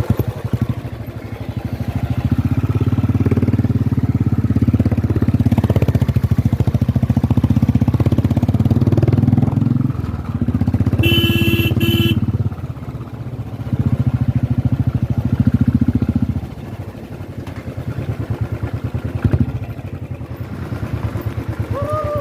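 Royal Enfield Bullet single-cylinder motorcycle engine running with a fast, even pulsing beat, pulling harder and easing off several times and dropping to a lighter run for the last few seconds. A horn beeps twice, briefly, about eleven seconds in.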